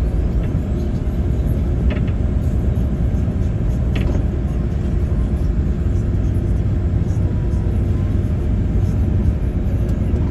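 Interior sound of a 1997 Mercedes-Benz 814 D minibus under way: its Mercedes-Benz OM904LA four-cylinder diesel running steadily, with road noise, heard from inside the passenger cabin. A couple of brief clicks or rattles come about two and four seconds in.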